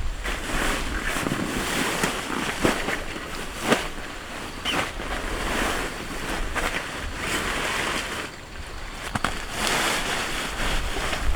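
Steady rain on a tent, a constant hiss with a few sharp louder taps.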